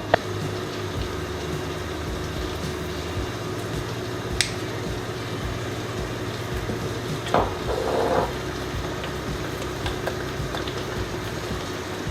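Steady kitchen background hum and hiss with a faint steady tone, broken by a sharp click just after the start, another about four seconds in, and a short clatter around seven to eight seconds in.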